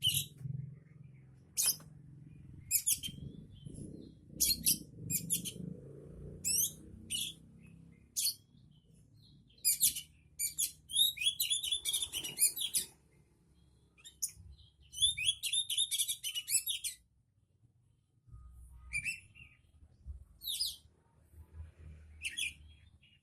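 A songbird singing: sharp, high chirps and short phrases, broken by two longer runs of rapid warbling song in the middle.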